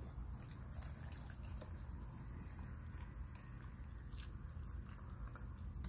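Water being poured from a stainless-steel pot into a paper cup of instant ramen noodles: a faint, steady pour.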